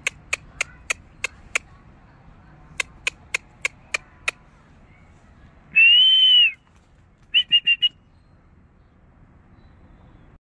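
Two runs of sharp clicks at about three a second, then one steady high whistle lasting under a second and four quick short whistle pips just after it.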